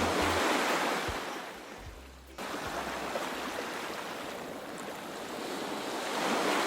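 Sea waves washing, swelling and falling away twice, with a sudden break about two and a half seconds in.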